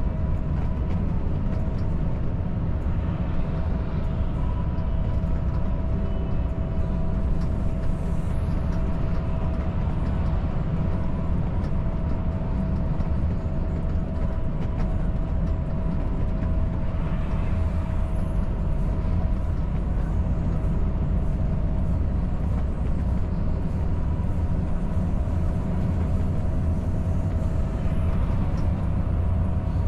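Volvo FH540 truck cruising on the highway: the steady drone of its diesel engine mixed with tyre and road noise, with a faint steady whine held above it.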